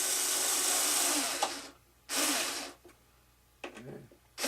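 Power screwdriver or cordless drill driving a screw home, in a long burst that stops about a second and a half in, then a second short burst to snug it tight.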